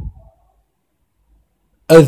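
Silence in a pause between phrases of a man's Arabic recitation: the last word dies away in the first moment, and the next phrase starts near the end.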